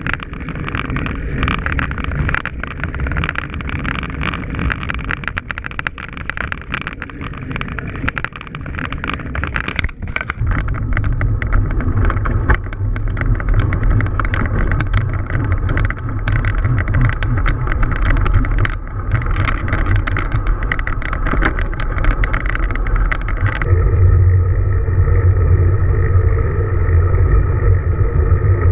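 Wind buffeting a GoPro's microphone with road noise while riding a road bike, with frequent clicks and rattles over the road surface. The low rumble grows stronger about ten seconds in, and near the end the sound turns steadier with a humming tone.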